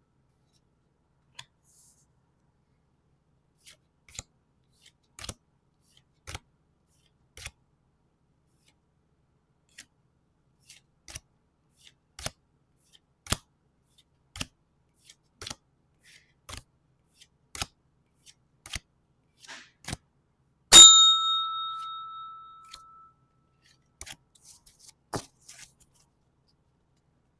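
Pokémon trading cards being handled and flipped one at a time on a table, a soft click or tap every second or so. About two-thirds of the way in a small bell dings once, loud and clear, and rings for about two seconds.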